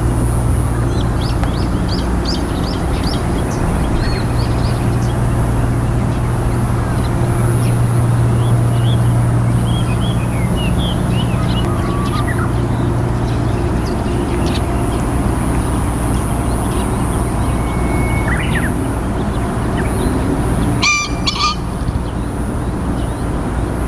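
Green pheasant cock crowing once, a short loud harsh call about 21 seconds in, with a brief burst of wing-beating, its display after calling. Small birds chirp faintly before it.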